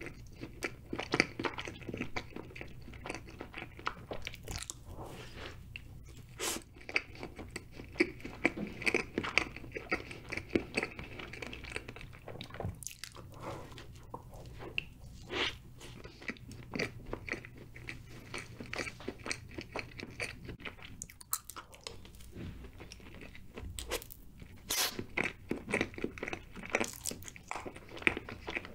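A person biting and chewing chocolate layer cake: irregular crunches and clicking mouth sounds in uneven clusters, over a faint steady hum.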